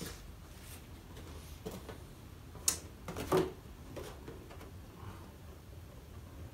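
A cardboard box being handled: a few brief rustles and taps, the sharpest about two and a half seconds in and another just after, over a quiet room.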